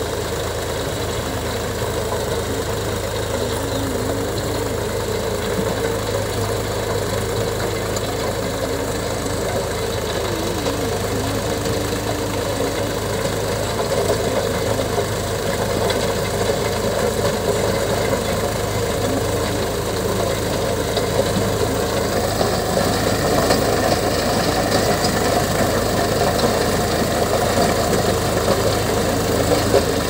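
Indo Farm tractor's diesel engine running steadily while the tractor pulls a rotavator through dry soil; the sound grows a little louder in the second half.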